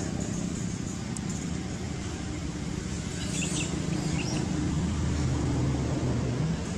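Outdoor background noise: a steady low rumble, with a brief high chirping about three and a half seconds in.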